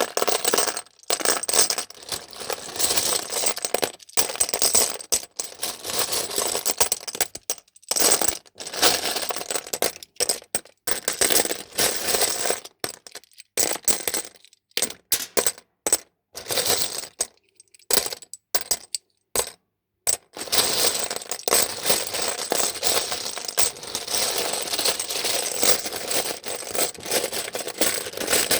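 Dense, continuous crackling and clinking noise made of many small clicks. It cuts off abruptly several times, with brief silences in the middle before it resumes.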